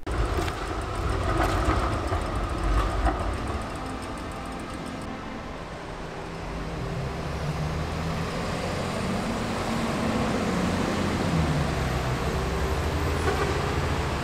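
City street traffic noise on wet roads: a steady low rumble of passing vehicles and trams.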